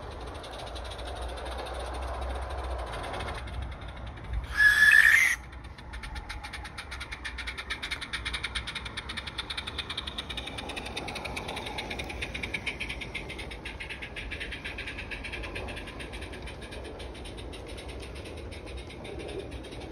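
Live-steam garden railway locomotive sounding its whistle once, a short pitched blast of about a second, about four and a half seconds in. Then it runs on with a rapid, even chuffing beat over the rumble of the train on the track.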